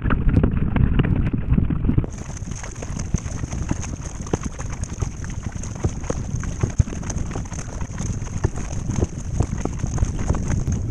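Water splashing and dripping around a paddled surfski, with many small pattering drops on the hull. About two seconds in, the low rumble drops and a steady high-pitched whine comes in and stays.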